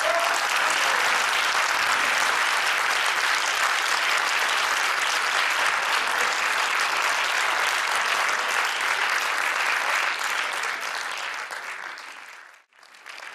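Audience applause: many hands clapping together in a dense, steady crackle that tapers off near the end.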